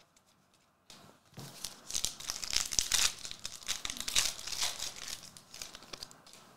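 A trading-card pack's foil wrapper being torn open and crinkled by hand. It is a dense run of crackling that starts about a second in and dies away near the end.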